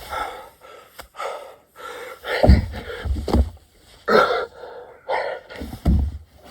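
Heavy gasping and panting breaths of a man doing burpees, a hard breath every second or so, with dull low thumps as he drops and lands, and a sharp click about a second in.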